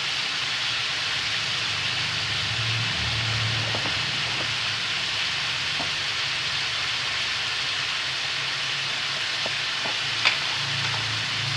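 Pork ribs stir-frying in hot oil with garlic and shallots: a steady sizzle as the meat sears firm. A single sharp click comes about ten seconds in.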